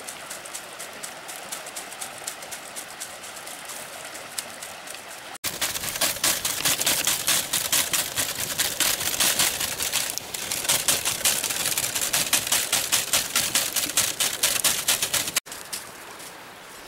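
A whole carp grilling on a bamboo rack over a wood fire, with rapid dense sizzling and crackling that comes in loud about five seconds in and drops away about fifteen seconds in. Before and after that, a softer steady rush with lighter crackles of the fire.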